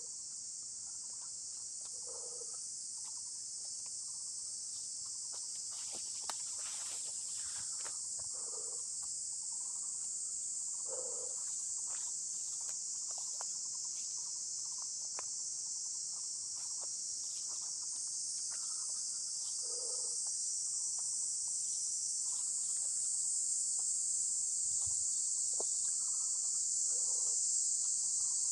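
A chorus of insects making a steady, high-pitched hiss that grows gradually louder.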